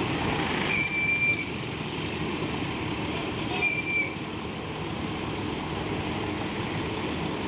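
A bus engine running with steady road and traffic rumble. Two short, sharp high-pitched tones cut in, about a second in and again about three seconds later.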